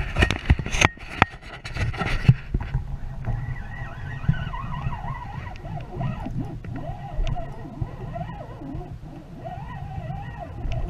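Clattering handling noise and wind on the microphone as a spinning rod is cast, for about the first two seconds. Then a steady low wind rumble, with faint wavering tones, while the lure is reeled back.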